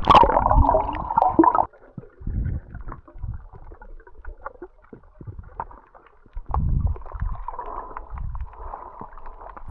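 Water bubbling and sloshing heard underwater while snorkelling. It is loudest for the first second or two, then settles into faint low thuds and clicks of moving water.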